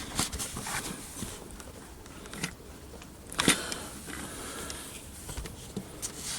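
Handling noises from small parts being worked by hand: scattered light clicks and scrapes, the sharpest click about three and a half seconds in.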